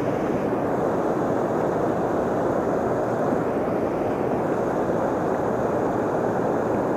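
Steady rushing roar of fast-flowing river water.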